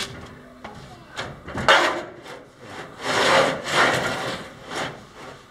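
Homemade lumber mill's wood-and-steel gantry being pushed along its track by hand, scraping and rubbing in a few bursts, the longest a little past halfway. The scraping is where the gantry catches on a part below it, a rub the builder means to cure by shimming it up with washers.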